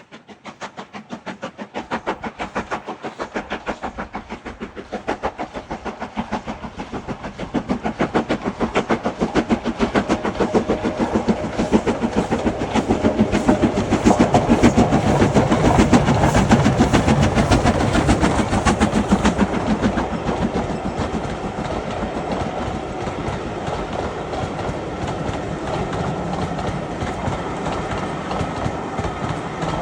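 Steam locomotive working a train away, its exhaust beats quickening and growing louder, loudest about halfway through, then merging into a steady rumble and clatter of the train that slowly fades.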